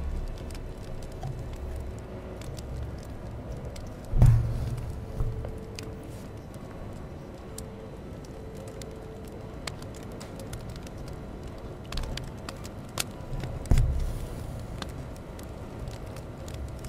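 Close-miked hand embroidery: a needle pushed through cotton fabric stretched in a wooden hoop and floss drawn through, giving scattered small clicks and soft pulls. Two louder thumps come about four seconds in and again near fourteen seconds.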